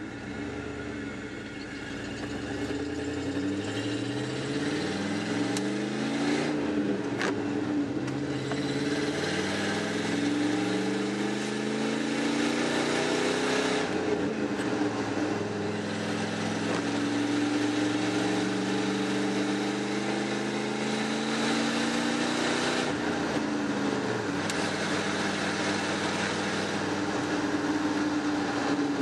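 1994 Ford F-150's 5.0-litre V8, heard from inside the cab, accelerating away from a stop. The engine note climbs and drops in pitch at each upshift, about six and fourteen seconds in, then runs steadier with another shift a little past twenty seconds, over a constant hiss of wet road noise.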